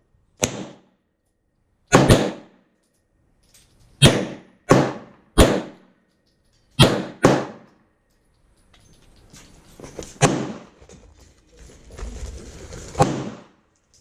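A string of about ten gunshots at irregular intervals, some close pairs, each a sharp crack with a short echoing tail. They are denser in the first seven seconds and more spread out after that.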